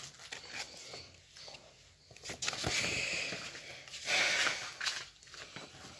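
Magazine pages being handled and turned: a soft rustle and swish of paper, loudest from about two to four and a half seconds in.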